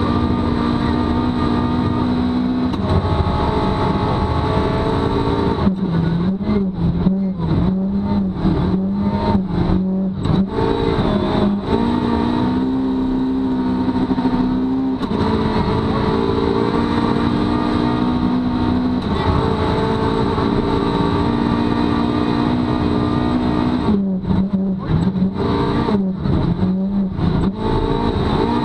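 Rally car engine running hard at speed, heard from inside the cabin over constant tyre and road noise on a snow stage. Its steady note drops and wavers twice, about six seconds in and again near the end.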